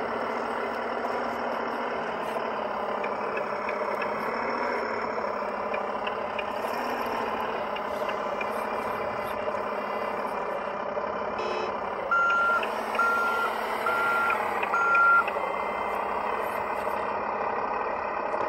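Simulated diesel engine sound from the sound module of a 1/14 scale RC wheel loader (Kabolite K988, a CAT 988K replica), running steadily as the loader works. About two-thirds of the way through, four reversing beeps a little under a second apart sound as the loader backs up.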